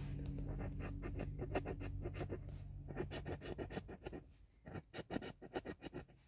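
A coin scraping the coating off a scratch-off lottery ticket in quick repeated strokes. The strokes thin out to separate scrapes about four seconds in.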